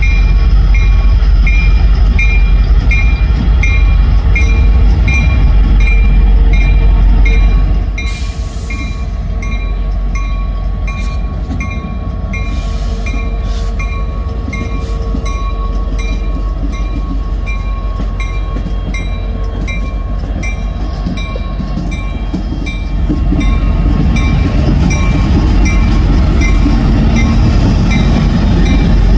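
A CSX freight train rolling past with a heavy rumble and the clack of wheels over rail joints. A road-crossing bell dings steadily about twice a second throughout. The train's rumble eases about a third of the way in and swells again near the end.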